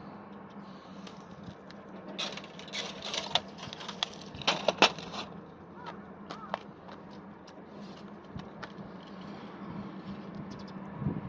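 A run of sharp clicks and knocks lasting about three seconds, then a few scattered clicks, over a steady low hum.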